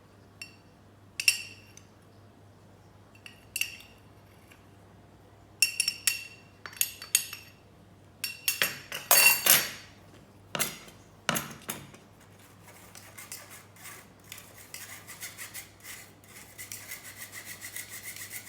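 A metal spoon clinking against containers as powdered sugar is spooned into gram flour in a bowl. From about two-thirds of the way through, the spoon scrapes rapidly round the bowl, stirring the dry mixture.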